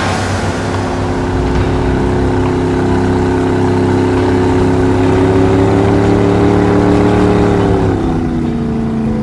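Shuttle boat's engine running steadily from aboard, its pitch creeping slowly upward, then dropping about eight seconds in as it throttles back.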